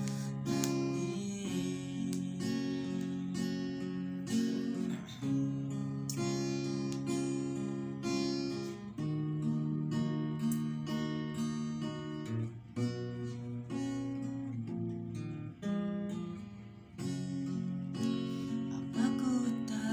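Acoustic guitar playing an instrumental passage of strummed chords, the chord changing every second or two.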